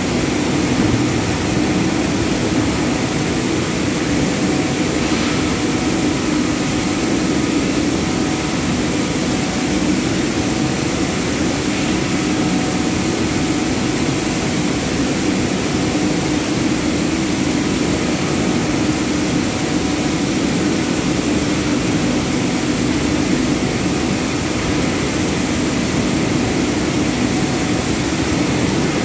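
Palm oil mill machinery running continuously, a large rotating steel drum among it: a loud, steady industrial hum with a few faint constant tones and no pauses or changes.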